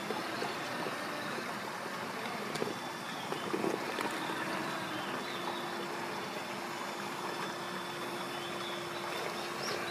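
Axial SCX6 1/6-scale RC crawler's electric motor and geared drivetrain whining steadily at a constant low crawl over rock, over the steady rush of a mountain stream.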